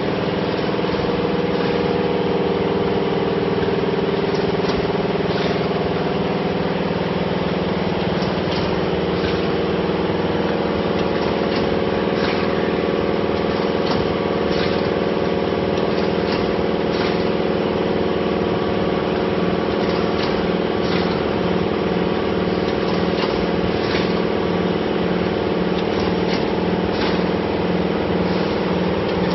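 Labelling and shrink-wrapping machines on an automatic motor oil bottle packaging line running: a steady machine hum with several held tones and scattered sharp clicks of the mechanisms. In the second half the low hum pulses about twice a second.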